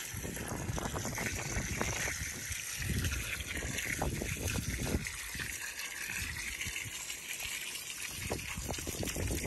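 Water spraying from a hose spray wand against a dirt bank: a steady hiss of spray with water trickling down.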